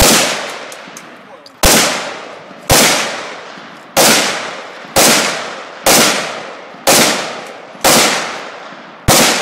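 Gunshots at a steady slow pace, about one a second, nine in all, each sharp crack followed by a long echo that dies away over the next second.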